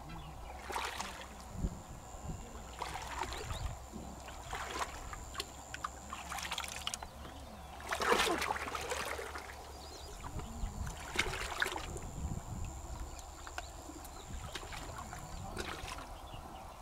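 River water splashing and sloshing in irregular bursts every second or two as a person wades and reaches down into the shallows; the largest splash comes about eight seconds in.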